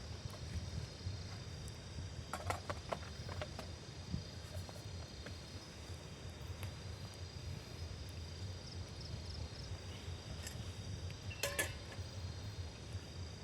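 Insects, crickets or similar, keep up a steady high-pitched trill over a low steady rumble. A few sharp clicks or knocks come a couple of seconds in, and another comes near the end.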